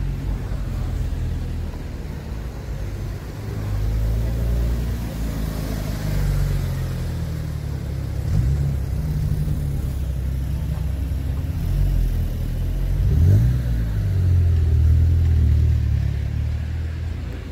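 Car engines running with a low, steady rumble, with a rev that rises briefly twice, about eight and thirteen seconds in.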